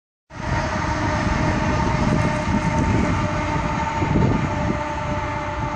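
Union Pacific pair of diesel locomotives passing, pushing at the rear of an empty coal train, with the hopper cars rolling and rattling. A loud, steady rumble comes in just after the start, with a steady whine held over it throughout.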